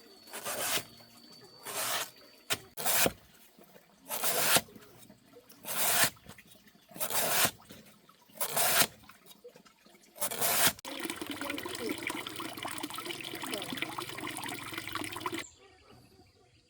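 Rhythmic scraping strokes, about one every second and a half. They are followed by a steady rushing noise for about five seconds that cuts off suddenly.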